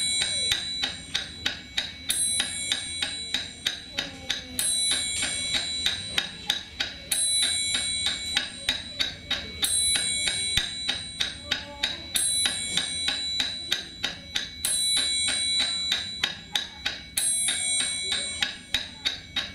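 Instrumental music built on a fast, even ticking beat with high, ringing bell-like tones, repeating a short phrase about every two and a half seconds.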